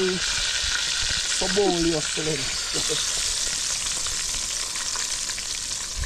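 Chicken pieces deep-frying in hot oil: a steady crackling sizzle.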